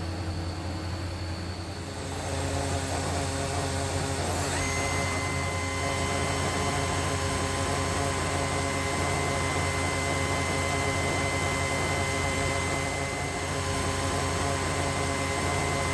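2010 Makino a61 CNC horizontal machining center running its axis-travel program at 50%: a steady mechanical drone with a low hum, joined about four and a half seconds in by a steady high whine that holds on.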